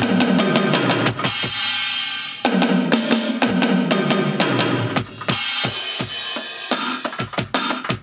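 Electronic drum samples of an Alesis D4 drum module played with sticks on a Roland SPD-SX Pro sampling pad: fast runs of snare, tom and kick hits whose deep tails ring and drop in pitch. A cymbal wash rings for about a second and a half, and the playing thins to a few scattered hits near the end.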